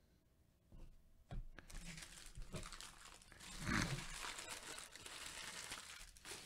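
Foil trading-card pack wrapper crinkling and rustling as it is handled, starting about a second and a half in and loudest a little past halfway.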